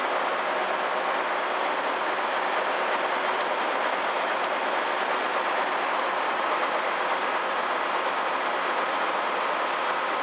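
Steady running noise in a heavy truck's cab with the diesel engine held at about 1000 rpm while the air compressor builds brake pressure toward the governor cut-out and air-dryer purge.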